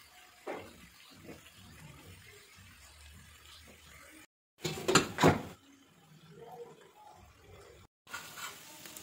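Metal kitchen utensils clattering on an iron tawa griddle: a few loud sharp knocks about five seconds in. Quieter handling sounds come before and after.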